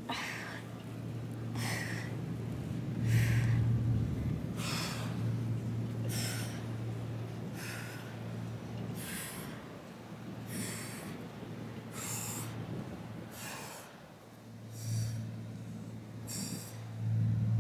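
A woman breathing out hard with each ab crunch, one short breath about every second and a half, over a low rumble.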